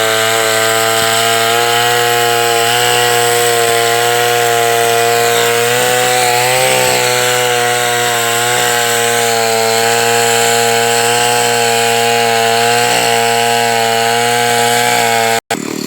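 Two-stroke chainsaw running at high revs while cutting wood, its pitch holding steady and dipping briefly about six to seven seconds in as the chain bites. The sound cuts off abruptly near the end.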